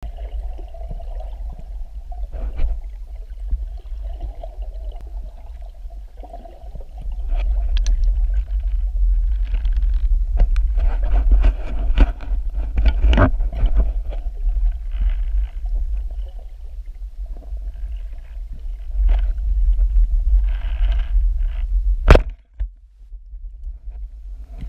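Muffled underwater noise picked up by a camera in a waterproof housing on a speargun: a steady low rumble of water moving over the housing, with scattered clicks and knocks. One sharp knock near the end is the loudest sound.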